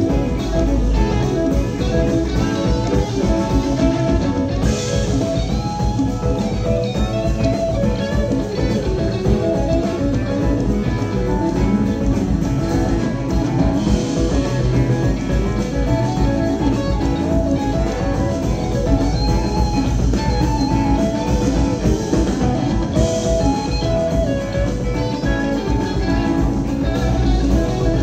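Live band playing, with an electric guitar playing single-note lines over bass and percussion.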